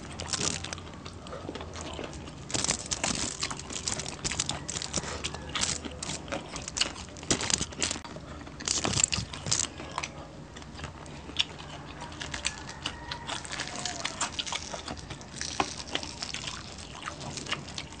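Close-miked eating with the hands: chewing and crunching of crispy sisig and fried fish, with irregular clicks and crackles as the fish is picked apart.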